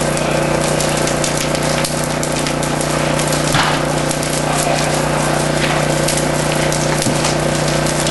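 A garage fire burning, with dense crackling and popping over a steady low hum. There are two sharper snaps, about three and a half and seven seconds in.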